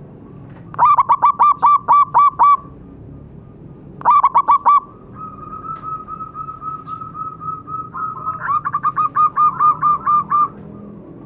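Zebra doves cooing: rapid series of short, clipped notes in three loud bursts, with a fainter, steadier trill between the second and third.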